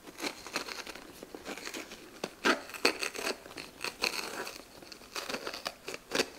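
A knife cutting into a raw sweet pepper and its core, seeds and ribs being pulled out: irregular crisp crackling and snapping as the flesh tears.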